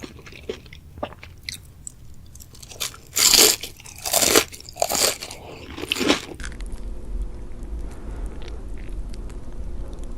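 Close-miked eating: bites and chewing with crunching. There are several loud crunches between about three and six seconds in. A little past six seconds this cuts off abruptly, giving way to a steady low hum with faint scattered clicks.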